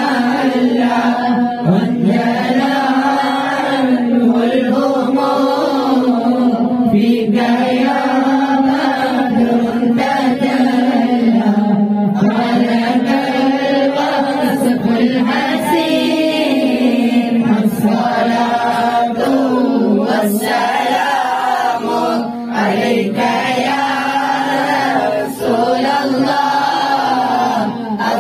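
Mawlid recitation: Arabic devotional verses in praise of the Prophet chanted in a sustained, melodic line by a young man singing into a microphone, unaccompanied, with other voices joining in chorus.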